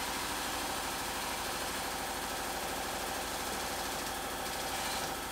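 Frame rack's hydraulic pump running steadily while its ram pulls a chain hooked to a crash-damaged rear body panel.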